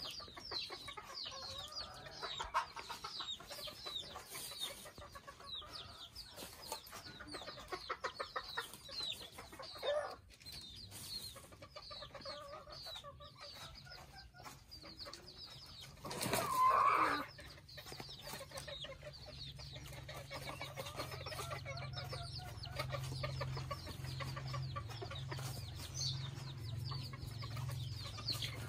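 Mini Thai bantam chickens clucking in their pen, with many short high chirps throughout. One loud call of about a second comes a little past halfway, and a low steady hum joins after it.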